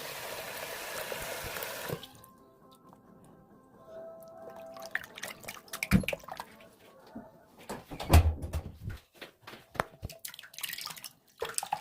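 Water runs steadily for about two seconds, then cuts off, followed by scattered wet clicks, drips and squelches of liquid soap being handled, with one louder low thump about eight seconds in.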